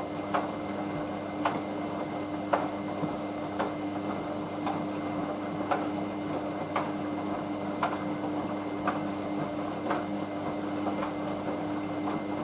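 Hoover washing machine running with a steady pump-like hum and a light click about once a second; the hum cuts off at the end.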